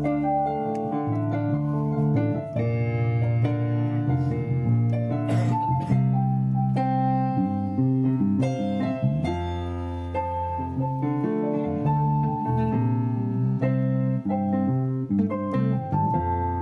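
Background music led by keyboard notes over a sustained bass line.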